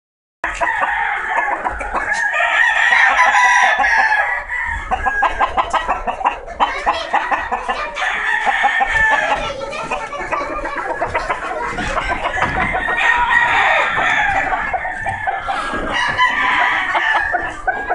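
Roosters crowing and clucking over one another without a break.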